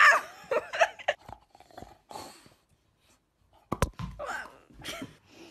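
A dog making short vocal sounds that rise and fall in pitch, in two spells: one at the start and another about four seconds in, with a sharp knock just before the second.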